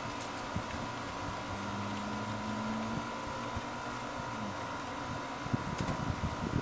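A distant motor's low hum that comes in about a second in, rises slightly in pitch and fades out about four and a half seconds in, over a faint steady high tone. There are low wind thumps on the microphone near the end.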